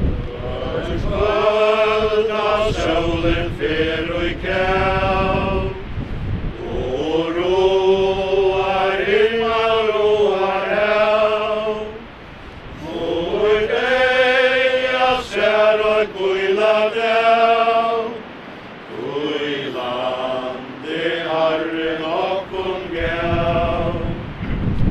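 A group of mourners singing a hymn together, unaccompanied, in long slow phrases of held notes with brief pauses between them. Wind rumbles on the microphone near the start and again near the end.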